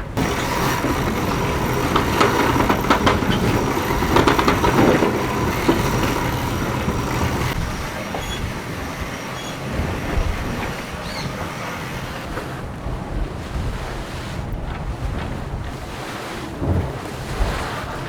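Steady rush of wind and water aboard a racing yacht under sail, with scattered knocks and rattles of gear on deck. It is louder for the first several seconds, then eases.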